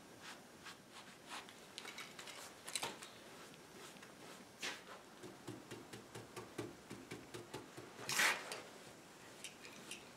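Bristle brush stroking glaze onto a finished wooden table top: faint, irregular short brushing strokes, with one longer, louder stroke about eight seconds in.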